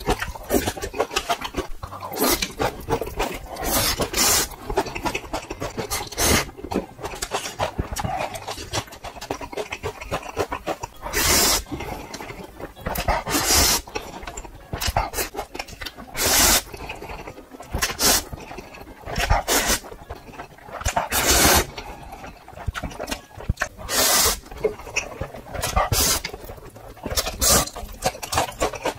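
A person slurping ramen noodles close to the microphone: loud, airy slurps about a second long every couple of seconds, with chewing and mouth clicks between them.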